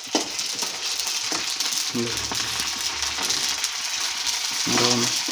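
Puris (pani puri shells) deep-frying in hot oil in a steel kadai: steady sizzling that starts at once and holds through.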